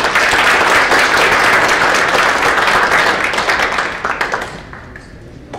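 Audience applause that starts at once, holds steady for about three seconds, then dies away.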